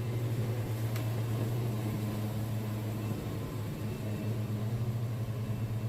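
Wood-Mizer LT70 sawmill running with a steady low hum.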